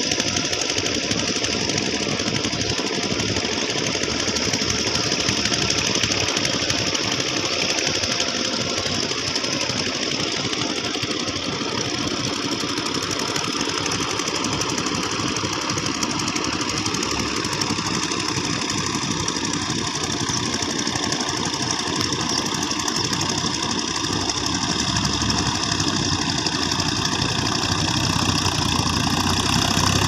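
Farm tractor's diesel engine running steadily with a regular knocking beat, working a muddy field.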